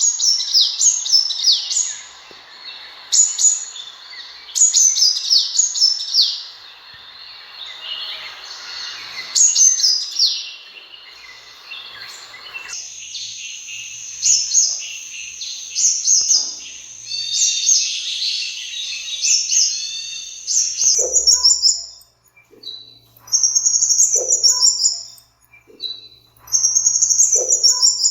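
Sunbird song: quick bursts of high, thin chirps and short descending trills, repeated every second or two. A faint background hiss behind the first half stops abruptly about halfway through.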